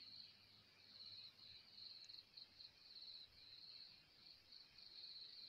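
Faint crickets chirring in a high, pulsing trill that keeps going.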